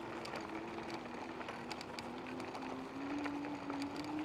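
Electric bike's motor whining steadily, its pitch dipping about a second in and rising again near the end, over the rustle and scattered ticks of tyres rolling on a dirt road.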